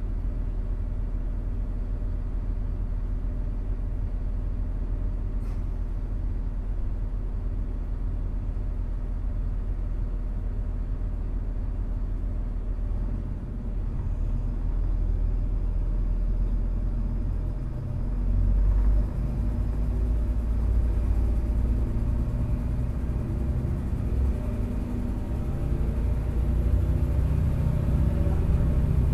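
DB class 642 Desiro diesel railcar's underfloor diesel engine idling steadily, heard from inside the passenger compartment. Past the middle the engine note rises and a deeper, louder rumble sets in as the train pulls away.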